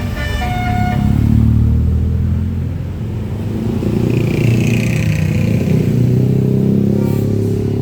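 A large tour bus's diesel engine running past, its revs rising and falling twice as it accelerates, just after a short last note of its telolet horn. A hiss sounds about midway through.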